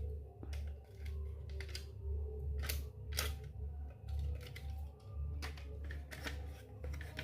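Irregular clicks and taps, a second or so apart, from small miniature toy kitchen pieces and their packaging being handled, over a low pulsing hum.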